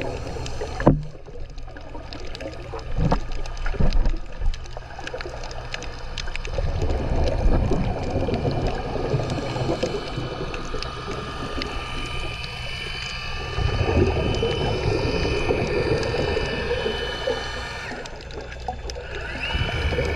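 Underwater sound of a scuba diver breathing on a regulator: exhaled bubbles rumble in surges every few seconds, among scattered clicks. From about halfway, a steady high whine sits over them and steps up in pitch near the end.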